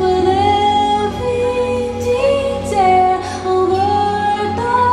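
Live indie pop band playing, with a female lead vocal holding long notes over guitars, keyboard, bass and drums, heard from the audience.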